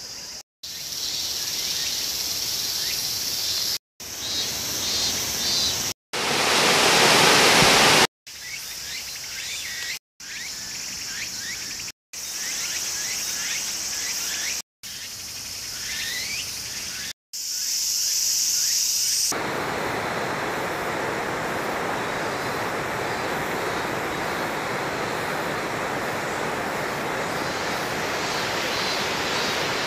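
Short clips cut together every couple of seconds, each carrying a steady high drone of insects with a few brief bird chirps, and one louder rush of noise about six seconds in. About 19 seconds in, a steady rush of flowing water takes over and runs on evenly.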